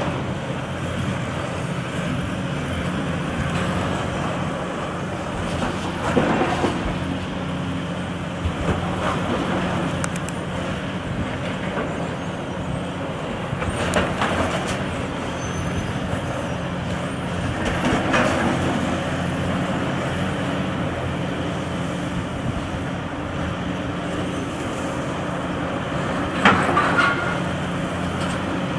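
Demolition excavator's diesel engine running steadily, with rubble crashing and clattering from its grab several times.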